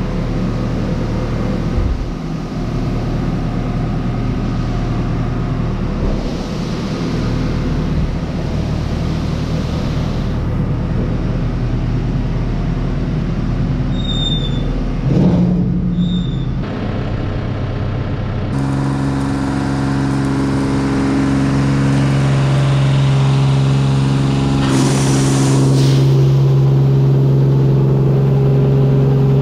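Claas Dominator 85 combine harvester running steadily, its engine and threshing machinery making a loud continuous drone. About two-thirds of the way through the sound changes abruptly to a steadier, deeper hum.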